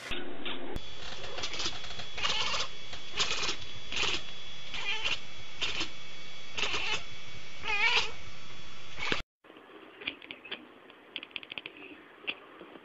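Cat meowing over and over, roughly once a second, one call wavering in pitch. About nine seconds in the sound cuts off abruptly, leaving a much quieter stretch with faint clicks.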